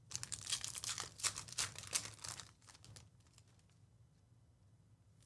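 Trading-card pack wrapper being torn open and crinkled for about two and a half seconds, a dense run of crackles, then a few faint ticks as the cards are handled.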